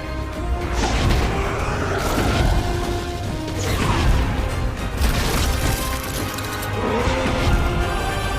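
Film soundtrack: dramatic music over fight sound effects, with crashes and booms on a heavy low rumble, and sweeping cries or whooshes about once a second.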